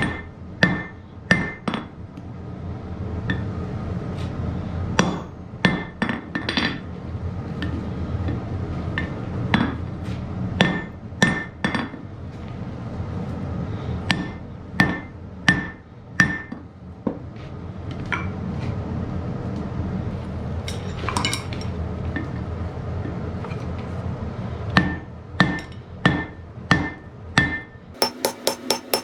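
Blacksmith's hammer striking hot iron on an anvil while forging, in short runs of ringing blows with pauses between them.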